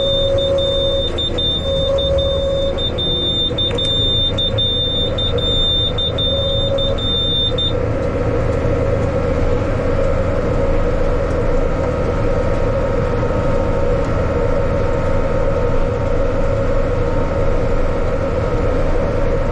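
Yanmar tractor's diesel engine running steadily under work. A high steady electronic beep tone sounds over it for about the first eight seconds, then cuts off abruptly.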